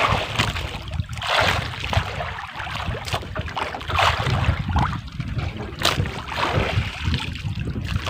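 Water sloshing and lapping against a small boat's hull in uneven surges, with wind rumbling on the microphone.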